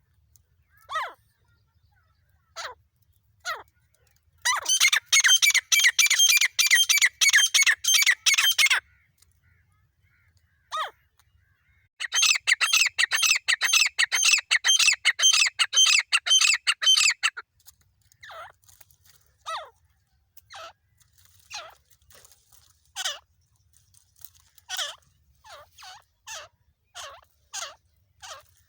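Grey francolin (teetar) calling: scattered single sharp, down-slurred notes, and two long runs of loud, rapidly repeated notes at about five a second, from about four seconds in to nine and from twelve to seventeen.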